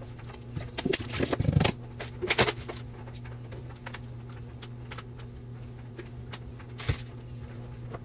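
Food containers and packaging being handled and moved about on the shelves of an open refrigerator: a burst of clattering and rustling about one to three seconds in, a sharp knock near the end and small clicks between, over a steady low hum.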